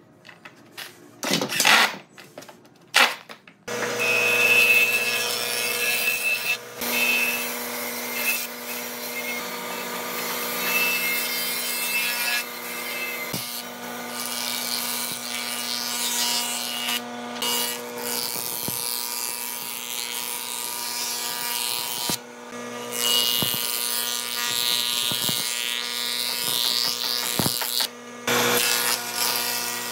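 A cordless drill runs in two short bursts. Then an old cast-iron planing machine runs steadily with a hum, its cutterhead planing pine boards fed across it, with a few brief breaks.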